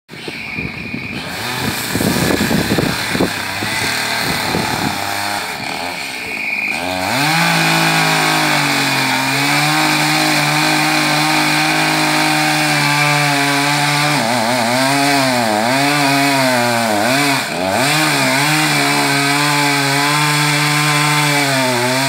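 Gas chainsaw running unevenly at low speed at first, then revving up about seven seconds in to a steady high pitch. In the second half the pitch sags and recovers again and again as the chain cuts into the oak trunk.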